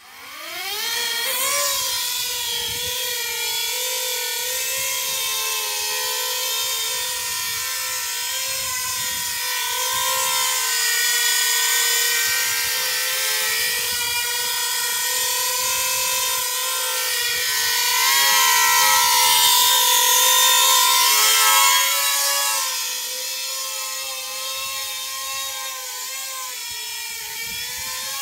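Coaxial copter's two counter-rotating electric motors and rotors spooling up with a rising whine, then running steadily in flight with a whine that wavers slightly as the throttle changes. It is a little louder for a few seconds past the middle and eases off somewhat near the end.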